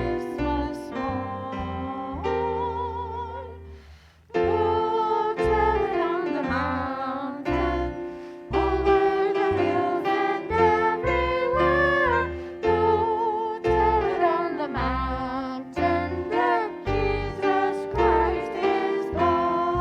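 Christmas hymn sung with piano accompaniment: a voice with vibrato over sustained piano chords. The music breaks off briefly about four seconds in, then continues.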